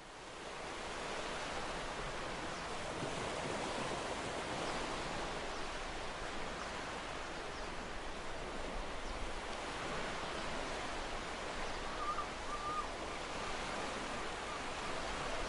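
Steady seashore noise of surf washing on a sandy beach, with wind.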